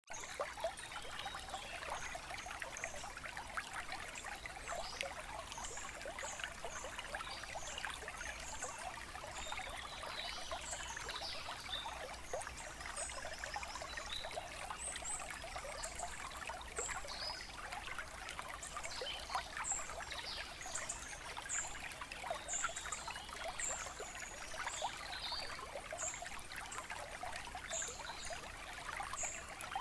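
Steady trickling, running water, with short high chirps scattered over it throughout.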